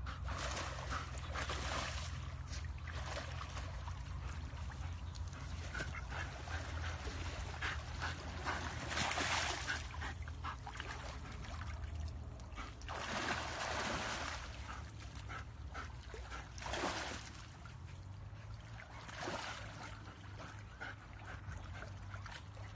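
A dog swimming and splashing through a muddy creek, in irregular bursts that are loudest about nine and thirteen seconds in.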